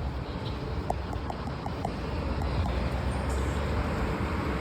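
Road traffic at a busy city intersection: a steady low rumble of passing cars, with a brief run of quick faint ticks about a second in.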